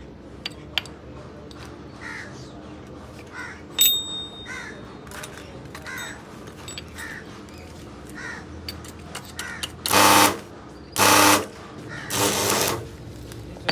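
Crows cawing: fainter calls repeating about once a second, then three loud, harsh caws close together near the end.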